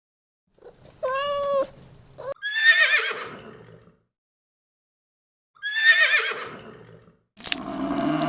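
A short cat meow, then a horse whinnies twice, each a high, shaky call falling in pitch. Near the end a lower, rougher animal sound starts.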